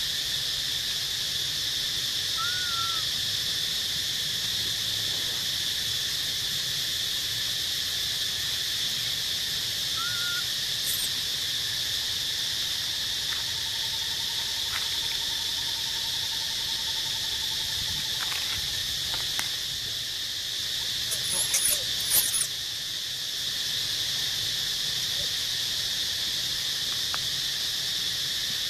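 Steady high-pitched insect chorus droning without a break. A few short, high squeals sound about three-quarters of the way through.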